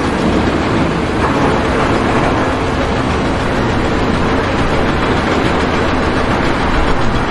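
Loud, steady machinery noise with a low rumble underneath, starting and stopping abruptly.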